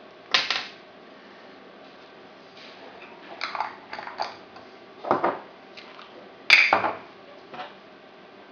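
Small metal tools, such as forceps or pins, clinking and scraping against a hard surface while an insect specimen is prepared: a handful of short, separate clatters, the loudest opening with a sharp click about two-thirds of the way through.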